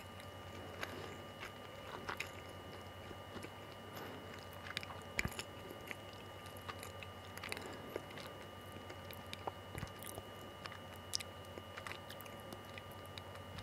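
Faint mouth sounds of someone chewing a bite of soft castella sponge cake: small irregular clicks and smacks over a faint steady hum.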